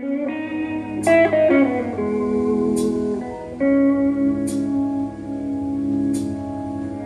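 Slow rock ballad played back through a BRZHIFI T300 Class AB power amplifier and loudspeakers: electric guitar notes over held keyboard chords that change every second or two, with a short bright tick about every second and a half.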